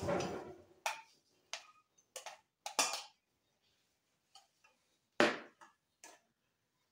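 Metal serving spoon knocking and scraping against a stainless steel saucepan as the pot is lifted and the stew is scooped out: several separate clinks, the loudest about five seconds in.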